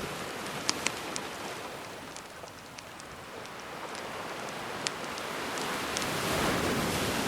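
Gentle sea waves washing ashore, with a wood campfire crackling and popping in sharp scattered snaps. A wave swells up louder near the end.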